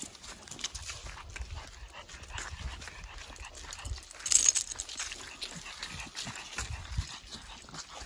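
Footsteps crunching through dry fallen leaves, irregular crackling strokes, with a Pekingese's heavy breathing close by. A louder rustling crunch comes just past halfway.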